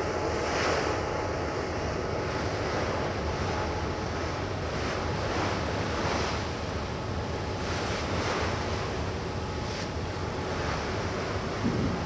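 Storm wind buffeting the microphone over rough, choppy sea water, a steady rushing noise that swells and eases every second or two. A lower rumble comes in near the end.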